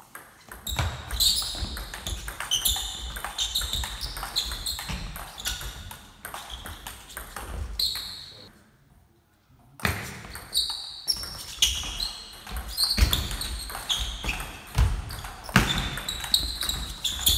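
Table tennis rallies: the celluloid-type ball clicking back and forth off the bats and the table at a quick, irregular rhythm. The play breaks off briefly about nine seconds in, then picks up again.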